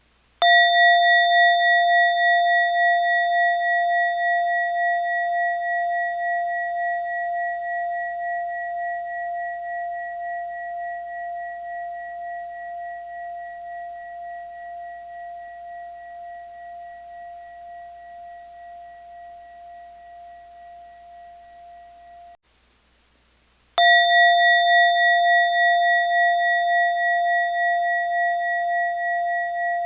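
A bowl-shaped bell struck twice. Each stroke rings a long, wavering tone that slowly fades. The first ring cuts off abruptly about 22 seconds in, and the second stroke comes about a second and a half later and rings on.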